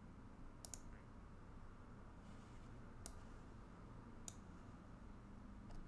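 Faint room tone with a few sharp computer mouse clicks: a quick double click under a second in, then single clicks about three and four seconds in.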